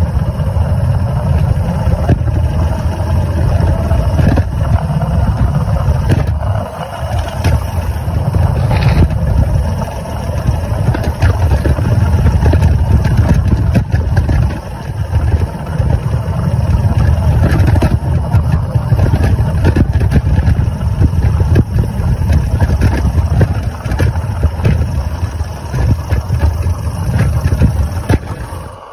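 Model Sentinel DG6 live-steam wagon running under its own steam, heard close up from on board: a steady low rumble from the engine and the wheels rolling over paving, with scattered clicks. It eases off briefly a few times and dies away near the end.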